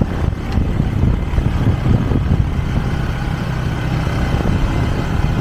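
Motor vehicle running, a steady low rumble of engine and road noise.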